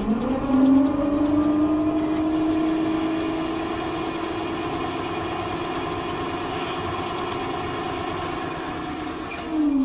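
QuietTorque QT20 20-kilowatt electric inboard boat motor spinning up with a rising whine in the first second, then running at a steady whine with several overtones, and winding down with a falling pitch near the end.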